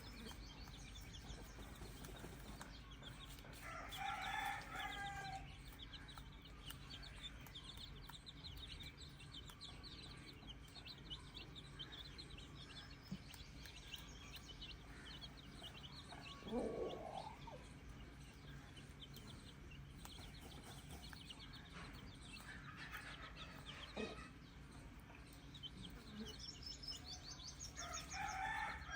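Free-range chickens calling: roosters crowing three times, about 4 seconds in, after about 22 seconds and near the end, with clucking and a steady high chirring underneath.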